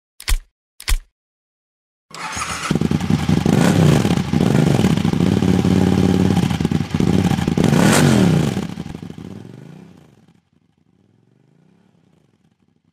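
Intro sound effect: two short sharp hits, then a loud engine revving hard, its pitch rising and falling. It sweeps past about eight seconds in and fades away.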